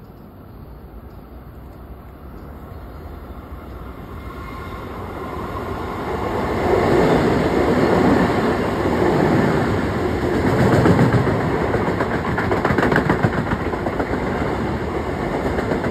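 LIRR M7 electric multiple-unit train running through the station without stopping. It grows louder over the first several seconds, then rushes past loudly with a dense rattle of wheels over the rails.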